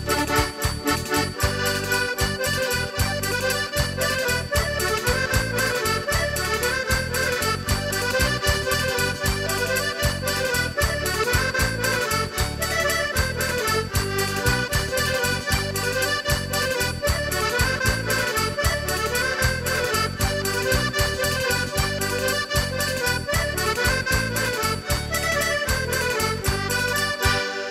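Traditional folk music led by an accordion over a steady bass beat; the music ends near the end.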